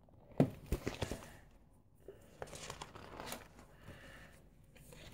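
Paper pages of a spiral-bound scrapbook rustling and crinkling as they are handled, with a cluster of sharp clicks and rustles in the first second or so, then quieter rustling.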